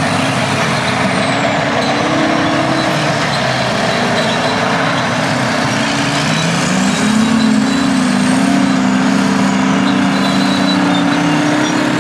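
International Harvester TD25 Series C bulldozer's diesel engine running under working load. Its note rises about halfway through, holds there, then eases slightly near the end.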